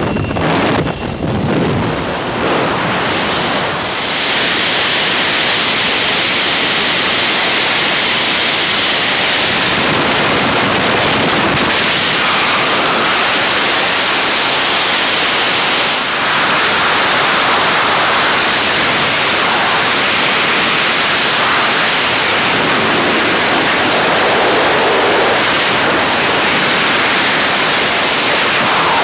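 Wind rushing over a camera microphone in wingsuit freefall: a loud, steady rush of air. For the first few seconds at the aircraft's open door the noise is quieter and uneven; about four seconds in, after the exit, it settles into the full constant rush.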